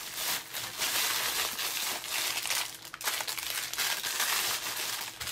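Clear plastic packaging bags crinkling and rustling as bagged craft supplies are handled and moved aside, in irregular bursts with brief pauses.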